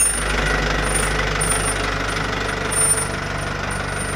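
Minibus diesel engine idling steadily while being warmed up, an even, close rumble.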